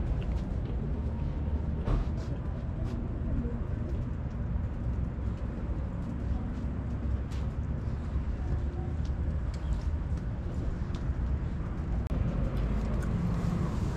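Outdoor background noise: a steady low rumble with scattered light clicks and taps.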